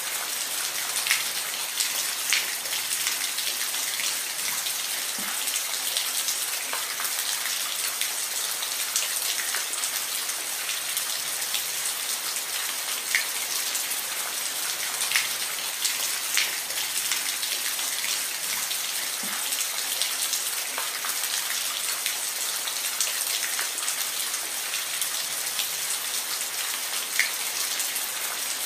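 Steady rain falling, with scattered louder individual drops landing close by every second or so.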